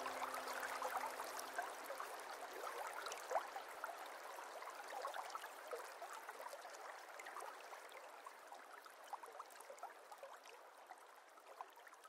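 Water trickling and dripping from a paludarium waterfall: a soft splashing hiss with many small drips, fading slowly. A held note of background music dies away in the first second or so.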